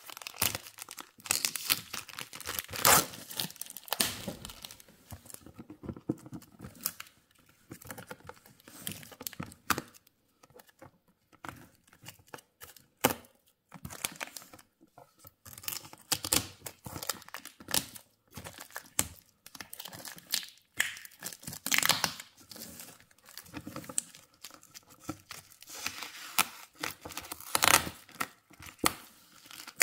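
Plastic stretch wrap and packing tape being slit with a knife and torn and crinkled off a cardboard parcel. The sound is irregular crackling and ripping with pauses, with the sharpest rips about three seconds in and again near the end.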